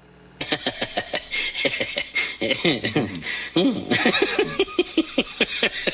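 A person laughing hard in quick, repeated bursts.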